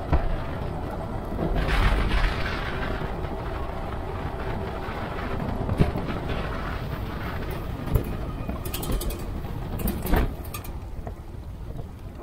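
Riding noise of a Super73 S2 electric bike: a steady rush of wind on the chest-mounted camera's microphone and tyre noise, broken by a few sharp knocks from bumps.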